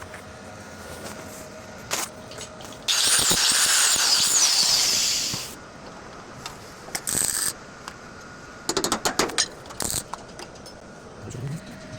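A power tool runs hard for about two and a half seconds with a high whine, then a brief burst, then a quick string of sharp clicks.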